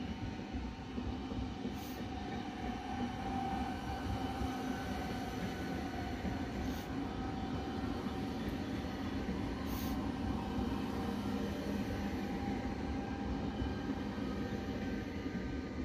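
Trenord TSR double-deck electric multiple unit, two sets coupled, moving past the platform: a steady rumble of wheels on rail with an electric hum, a few sharp clicks, easing as the last car goes by near the end.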